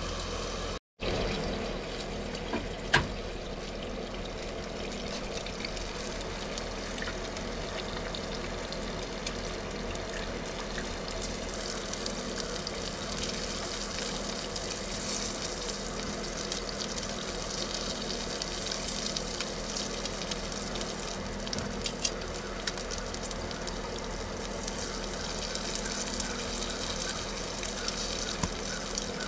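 Bacon sizzling in a frying pan on a small propane camp stove, a steady hiss. There is a brief dropout just under a second in and a sharp click about three seconds in.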